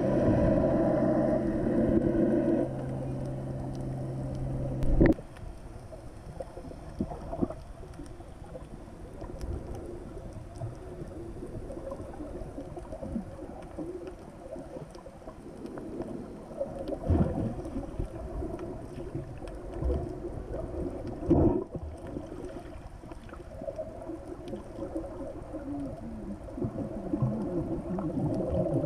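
Muffled underwater sound as heard by a camera in a waterproof housing: a boat engine's steady hum for the first few seconds, ending with a sharp knock about five seconds in. After that comes quieter water noise with bubbling and scattered knocks.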